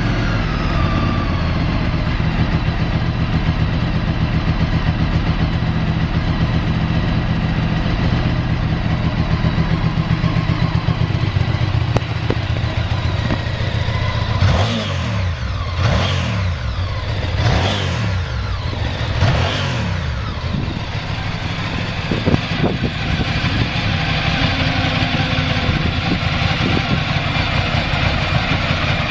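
Ducati SS800ie's air-cooled L-twin engine idling steadily, then blipped to higher revs four times in a row about halfway through, dropping back each time, before settling back to a steady idle.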